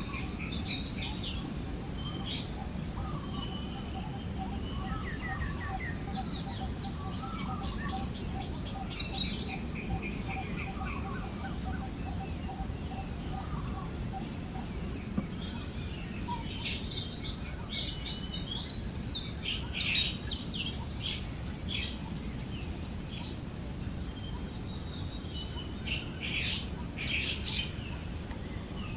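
Forest birds chirping and calling in short scattered phrases over a steady high-pitched insect drone, with a soft low wind hiss underneath. A low, rapid pulsing call runs through about the first half.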